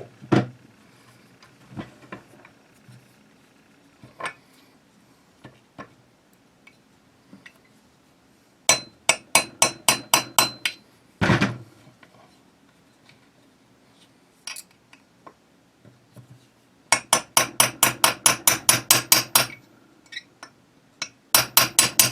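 Small hammer tapping a pin into a rifle's trigger housing until it sits flush: bursts of quick light metallic taps, a run about nine seconds in, a single harder strike near the middle, and a long fast run of taps near the end.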